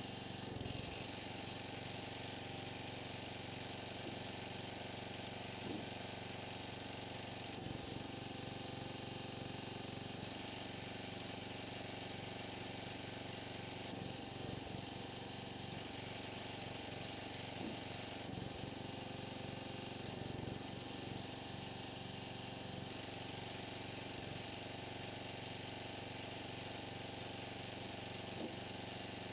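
Small engine of a homemade hydraulic log splitter running steadily while firewood is split, with a few faint knocks of wood.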